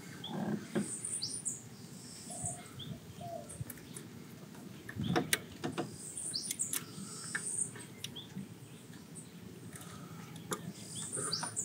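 Birds chirping now and then in short rising calls, over a few clicks and knocks from rubber hoses and fittings being handled and pushed onto an engine's lower intake manifold.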